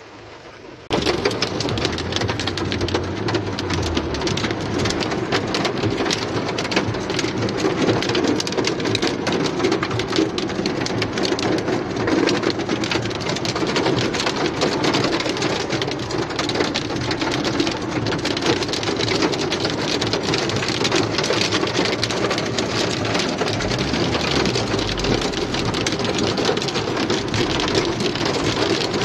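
Heavy rain hitting a car's roof and windscreen, heard from inside the car as a dense, steady patter of drops. It starts abruptly about a second in.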